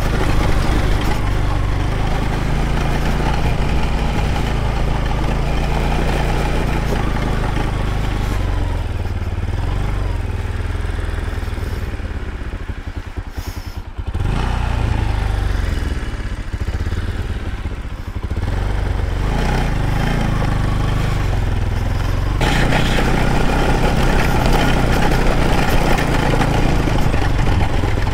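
Motorcycle engine running while the bike is ridden. The revs fall away to a low, pulsing beat about halfway through, then build up again and grow louder near the end.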